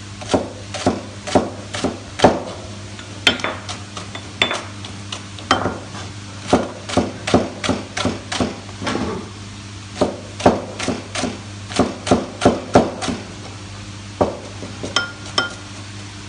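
Large chef's knife chopping leeks on a plastic cutting board: sharp knocks of the blade on the board, about two to three a second, with a couple of brief pauses.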